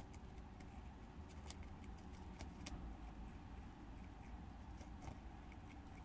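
Prairie dog chewing and nibbling an ear of corn in its green husk: faint, irregular small crunching clicks over a steady low background hum.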